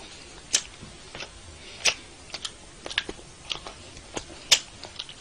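A series of short, sharp clicks at an uneven pace, roughly two a second.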